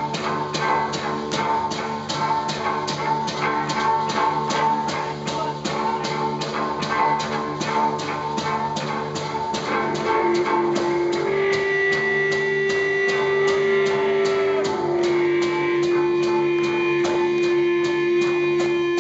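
Rock band playing live, electric guitar and drum kit, with an even beat of about four hits a second. About halfway in, long held notes come in over it.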